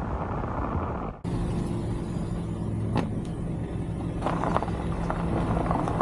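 A car driving with steady road noise. After a sudden cut about a second in, the car's engine hums steadily at low speed, and from about four seconds in there is a light crackle of gravel under the tyres.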